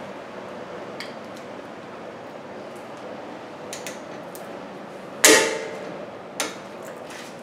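Wrenches on a pickup's front brake caliper bolt as it is worked loose: a few light metal clicks, then a loud ringing metal clank a little over five seconds in and a shorter knock about a second later, over a steady shop hum.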